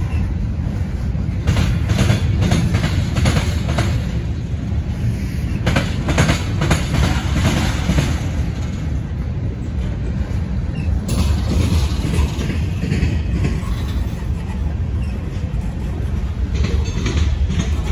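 Freight train cars (open-top gondolas, a tank car and covered hoppers) rolling past with a steady low rumble. Clusters of wheel clacks come and go as trucks pass over the rail joints.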